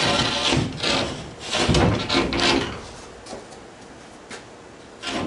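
Scraping and rubbing strokes of a Coosa board stringer against a wooden boat hull as it is handled and scribed to fit. The strokes come several in a row at first, then the sound drops off, with a light tap about four seconds in.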